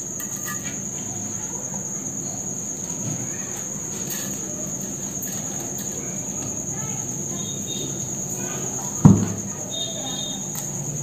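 Mustard seeds crackling faintly in hot mustard oil in a small tadka pan, under a cricket's steady high-pitched trill. One sharp knock comes about nine seconds in.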